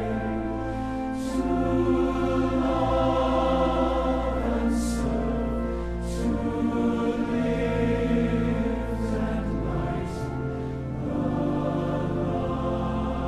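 Large mixed choir of men and women singing in long, held notes. Crisp 's' consonants sung together stand out a few times.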